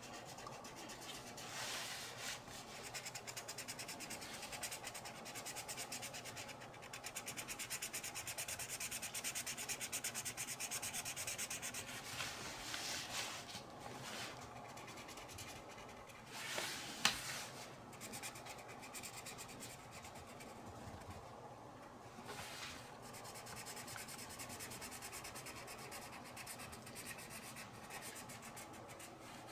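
Felt-tip marker scribbling on coloring-book paper in quick back-and-forth rubbing strokes, pausing briefly now and then. A single sharp click a little past halfway is the loudest sound.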